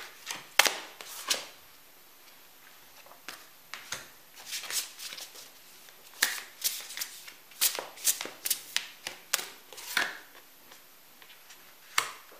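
A tarot deck being shuffled by hand in several short runs of quick card clicks, with pauses between, as cards are drawn and laid down onto the spread.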